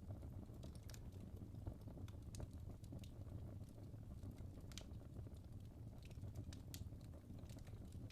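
Wood fire burning in a fireplace: a soft low rumble of flames with scattered, irregular crackles and pops from the logs.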